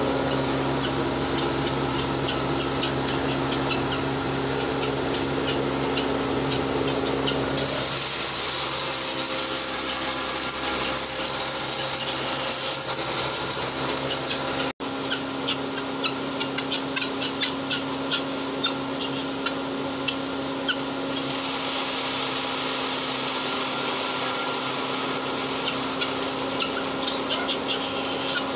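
Electric posho mill (a hammer mill driven by an electric motor) running steadily while grinding maize into flour: a constant machine hum with a patter of small ticks over it. The sound breaks off briefly about halfway through.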